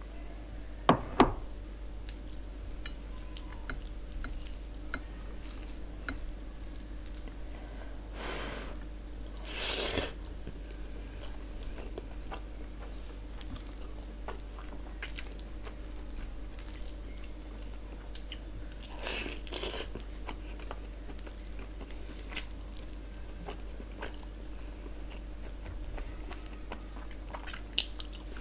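Eating sounds: fingers mixing and squishing rice with curry gravy on a plate, with small clicks and taps throughout and chewing. Two sharp knocks come about a second in, and two longer rustling, squelching bursts come later.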